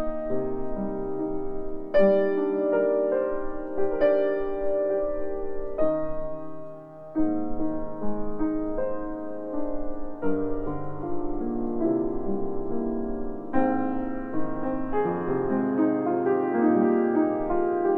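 A grand piano playing a slow piece in chords and single notes, each struck note ringing and fading, with a short lull about seven seconds in. It is recorded through a pair of Behringer C-2 small-diaphragm condenser microphones, whose sound the reviewer calls hard and glassy, not very smooth.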